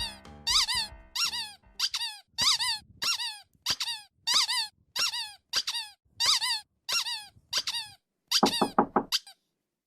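A squeaky cartoon honk repeated steadily about twice a second, each honk rising then falling in pitch. Near the end comes a quick flurry of four or five lower squeaks, then it cuts off suddenly.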